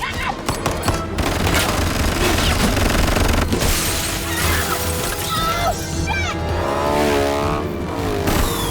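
Action-film chase mix: music score over gunfire, shattering glass and impacts. Bursts of sharp cracks and crashes are densest in the first seconds, with a wavering pitched sound near the end.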